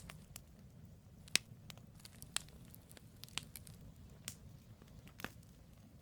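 Wood campfire burning, with irregular sharp crackles and pops of the logs, a few louder pops among them, over a low steady rumble of the flames.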